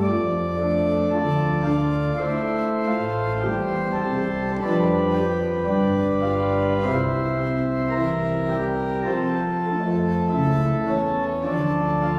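Organ prelude: sustained chords moving slowly from one to the next over a walking bass line, with no voices.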